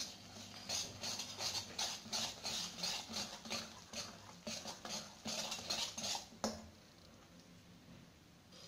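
Wire whisk stirring thick batter in a stainless steel bowl: quick rhythmic scraping and clinking against the metal, about three strokes a second. It ends with a sharp knock about six and a half seconds in.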